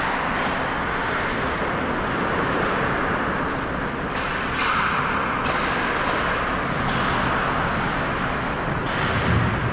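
Ice rink ambience: a steady hum of the arena with hockey skates scraping and carving on the ice in several short hissing swells.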